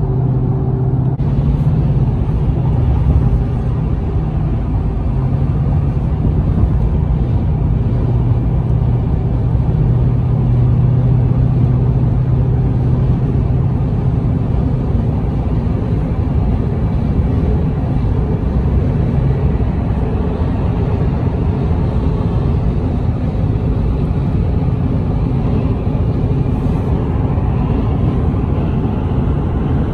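Steady road noise inside a moving car's cabin on a highway: tyre and engine rumble with a low hum, strongest through the first half.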